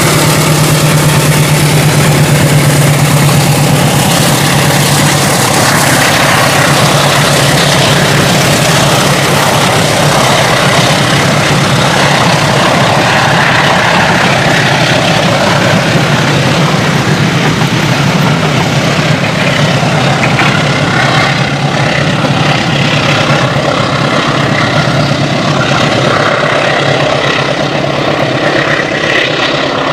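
A passenger train passing: a diesel-electric locomotive's engine hum, strongest in the first few seconds, over a steady rumble and clatter of steel wheels on the rails. The hiss of the wheels thins a little toward the end as the train draws away.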